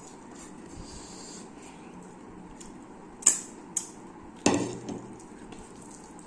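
Two sharp clicks a little past halfway, then a louder clatter with a short ring as a small plate is set down.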